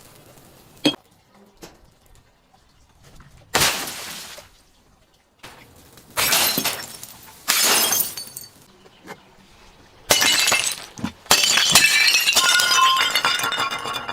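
Glass bottles shattering one after another: a sharp knock about a second in, then five loud breaks, the last followed by a few seconds of shards tinkling and clinking.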